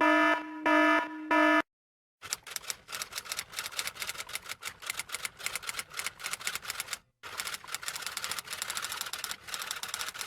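Typewriter keys clacking in rapid runs, two long stretches of fast typing separated by a brief pause. It is preceded by the last few short electronic beeps of a buzzer-like tone, which stop about a second and a half in.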